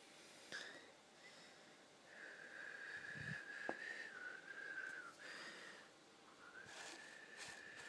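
Faint whistling: two long, slightly wavering notes of about three seconds each, with a few light clicks and a soft knock around them.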